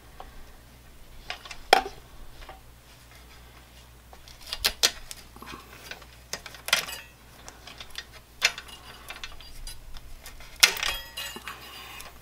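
Small metallic clicks and clinks of hand work on a scroll saw's lower blade holder, with a snap-off utility knife scraping tape off it. A handful of sharp clicks come spread out, the loudest about ten and a half seconds in.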